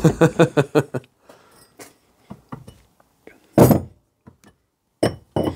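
A quick run of knocks in the first second, then scattered metal clicks and clunks as parts and tools are handled on a K-series aluminium cylinder head. The loudest is a single thunk a little after halfway.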